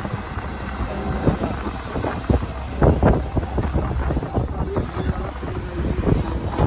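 Heavy diesel machinery running with a steady low rumble, broken by irregular thuds and knocks, with wind buffeting the microphone.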